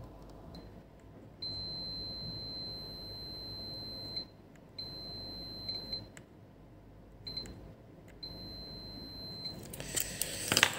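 Digital multimeter's continuity beeper sounding a steady high-pitched tone in four stretches, the longest nearly three seconds, as the test probes touch the board. The continuous beep signals a short circuit on the laptop motherboard, which the technician puts down to a damaged capacitor. Near the end, loud clattering handling noise.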